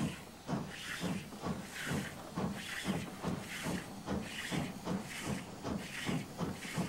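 Wood-burning 1875 American Standard (4-4-0) steam locomotive running, its exhaust chuffing in a steady rhythm of about two puffs a second over a hiss of steam.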